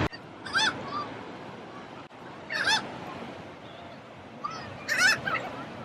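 Seagulls calling: three short runs of high cries about two seconds apart, the last the loudest.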